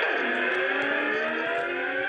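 Loud emergency-alarm siren tone that starts suddenly with a quick downward sweep, then holds as a harsh chord of several steady tones.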